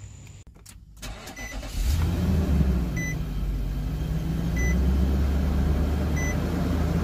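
2016 Infiniti QX80's 5.6-litre V8 starting up about two seconds in and settling into a steady idle after its alternator replacement, while a dashboard warning chime beeps four times at even intervals.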